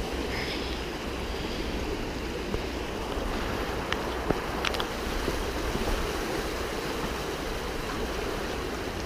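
Floodwater rushing steadily in a stream swollen up to the underside of a bridge, with a few faint clicks about four to five seconds in.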